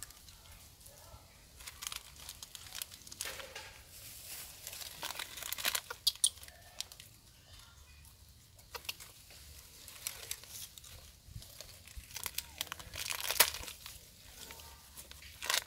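Foil-lined instant noodle packet crinkling in short, irregular bursts as a macaque handles it, loudest about midway and again near the end.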